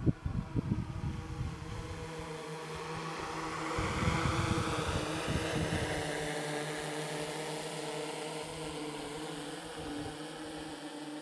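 Quadcopter camera drone flying, its propellers making a steady buzzing hum with held tones that swell about four seconds in and then ease off as it moves. Wind buffets the microphone at the start and during the swell.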